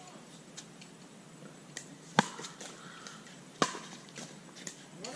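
Pickleball rally: a hard plastic ball is struck back and forth with paddles, making sharp hollow knocks. Two loud hits come about a second and a half apart, with fainter knocks around them.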